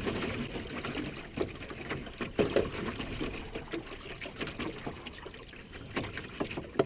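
Canoe paddle working the water: water trickling and dripping off the blade, with a few short splashes about a second and a half in, around two and a half seconds in, and near the end.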